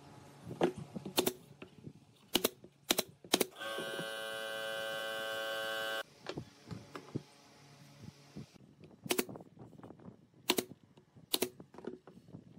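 Thin pine strips clacking as they are tapped and set down on a wooden workbench, a run of sharp knocks with a pause in the middle. Midway a steady electric hum sounds for about two and a half seconds, then cuts off abruptly.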